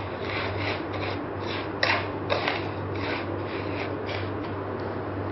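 Wooden spatula stirring and scraping roasted vermicelli mixed with condensed milk around a frying pan, with rubbing strokes about three a second and one stronger scrape about two seconds in.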